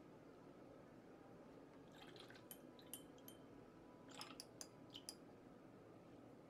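Faint clicks and light taps of a watercolor brush being rinsed and loaded with paint, in two short clusters, a few with a brief thin ring.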